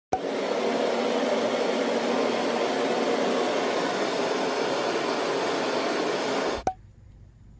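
Hot-air blower running steadily, a steady rushing blow of air, switched on with a click at the start and switched off with a click just before the end.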